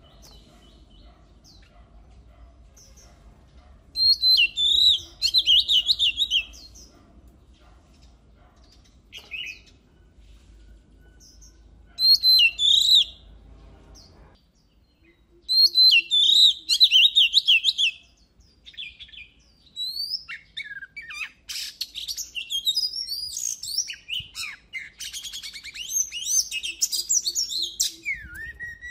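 Oriental magpie-robin singing: loud phrases of rapid whistled notes about 4, 12 and 16 seconds in, then a longer, denser run of varied high chirps and trills through the last third.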